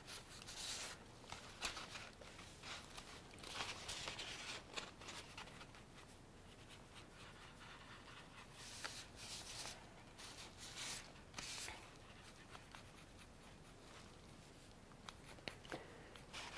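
Faint scratching of pen and marker tips on paper in short, repeated strokes while drawing and colouring.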